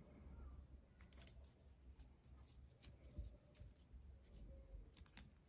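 Near silence, with a few faint scattered rustles and light ticks of paper yarn being handled.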